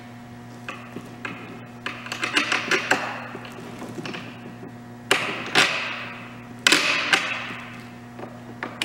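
Metal clicks, taps and clinks as a bolt and hand knob are fitted into the steel tube handlebar of an electric snowblower. A run of quick clicks comes about two seconds in, then several louder ringing clinks past the middle, over a steady low hum.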